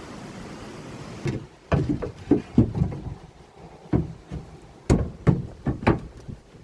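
A series of irregular knocks and thumps, about ten of them, starting about a second in and stopping near the end: wooden coop boards and panels being handled and bumped.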